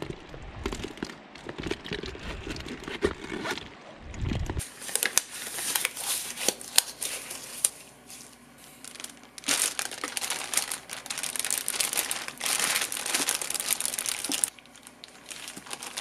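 A low rumble with handling noise from a fishing bag for about the first four and a half seconds, then a plastic zipper bag crinkling in repeated bursts as gloved hands open it and handle fresh horse mackerel.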